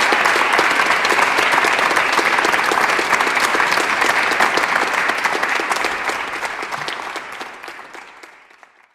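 Audience applauding, a dense spread of many hands clapping that fades away over the last three seconds.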